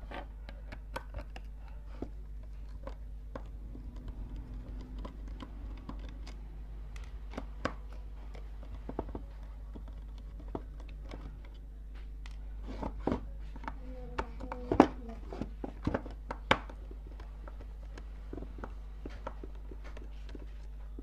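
Screwdriver unscrewing the screws of a small plastic speaker case by hand: scattered light clicks and ticks of metal on screw heads and plastic, with a few louder knocks past the middle, over a steady low hum.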